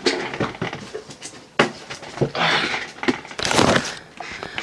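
Packaging of a cardboard-and-plastic collection box being handled and cut open with a knife: scattered clicks and knocks, with two longer scraping, crinkling bursts in the middle.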